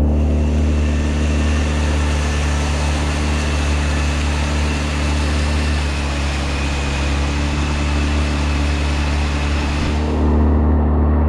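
A 15 hp Suzuki outboard motor running at a steady speed, towing the boat, with a rushing hiss of water and wind over it. The hiss drops away about ten seconds in.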